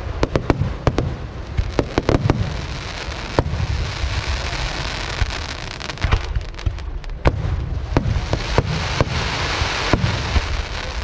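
Fireworks display: a rapid, irregular string of loud bangs from aerial shells bursting, over a continuous low rumble. A dense crackle fills the gaps between the bangs around four to six seconds in and again near the end.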